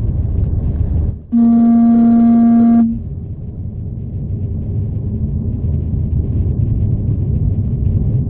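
A car horn sounds once, a single steady low note held for about a second and a half, over the steady rumble of a car driving, heard from inside the cabin.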